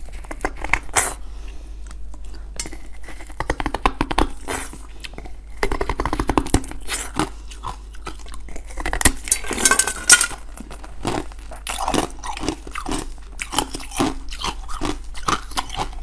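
Close-miked biting and chewing of a dark blue jelly piece: rapid sharp clicks and crackles with wet mouth sounds, coming in clusters as she takes bites, over a faint steady low hum.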